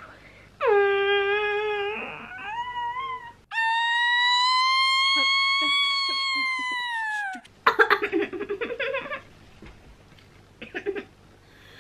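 A high wailing cry from a played clip: a first note of about a second and a half, a short wavering stretch, then one long held note of about four seconds that rises slightly and slides down at its end. A short choppy burst of voice follows.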